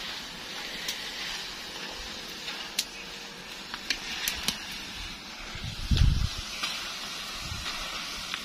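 Banana slices deep-frying in hot oil in a large iron wok: a steady sizzling hiss with scattered sharp pops as a wire skimmer turns them. A low thump about six seconds in.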